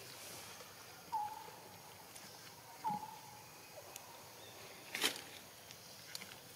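Quiet forest ambience with two short, slightly falling squeaky calls about two seconds apart. A single sharp snap comes near the end.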